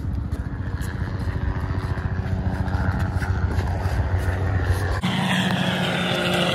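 A steady low engine drone, growing slightly louder, that changes abruptly about five seconds in to a higher, steadier hum.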